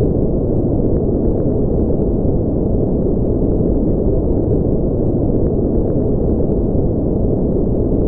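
Spaceship-interior white-noise ambience: a steady, deep rumble with no hiss on top and no changes.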